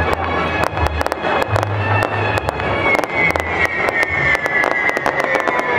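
Fireworks display: rapid, dense bangs and crackles of bursting shells, with music playing along. A high tone slides slowly down from about halfway through.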